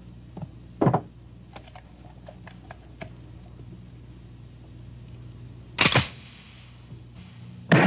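Pistol shots at an indoor firing range: a sharp shot about a second in and another about six seconds in, the second ringing briefly. Light clicks fall between them.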